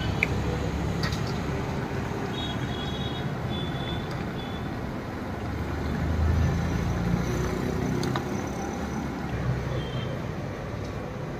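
Road traffic rumble, swelling about six to seven seconds in as a vehicle passes, with a few faint clicks.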